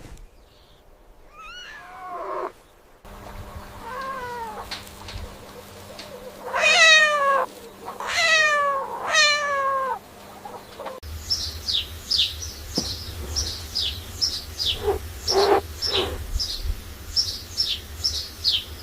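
A cat meowing several times, each call falling in pitch, the loudest three close together. About eleven seconds in it cuts to a small bird's rapid, high chirps, each one falling, several a second.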